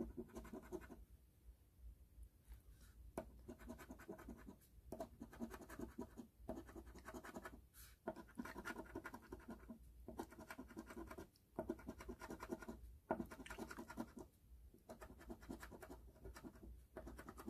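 A coin scraping the latex coating off a paper scratch-off lottery ticket, faint: quick rubbing strokes in short runs with brief pauses between them.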